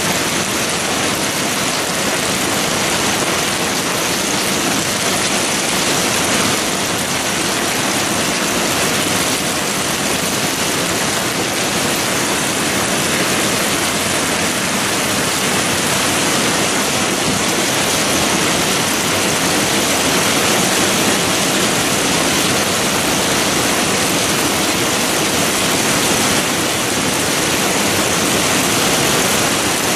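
Heavy rain mixed with hail pouring down: a loud, steady, dense hiss.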